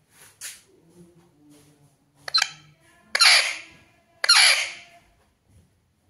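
Alexandrine parakeet giving three harsh, raspy squawks: a short one about two seconds in, then two longer ones about a second apart.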